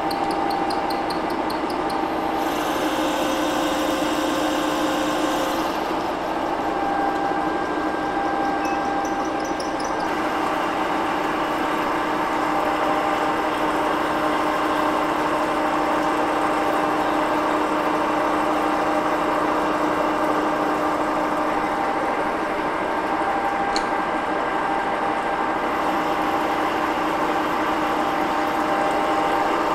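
Cincinnati 2ML horizontal milling machine running, its cutter milling a keyway in a steel idler shaft under a stream of oil coolant: a steady machine hum with a few held tones that shift somewhat in the first ten seconds.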